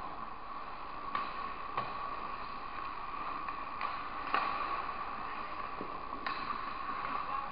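Ice-rink ambience during a hockey game: a steady hum through the arena, with a few sharp clicks and taps of sticks and skates on the ice.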